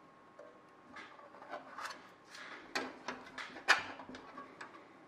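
Hand rivet squeezer with a long anvil being closed on rivets and moved along a sheet-metal rib: an irregular series of about eight sharp metallic clicks and clinks, one louder clack about three-quarters through.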